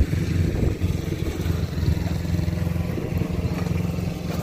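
Yanmar ViO40-2 mini excavator's diesel engine idling steadily.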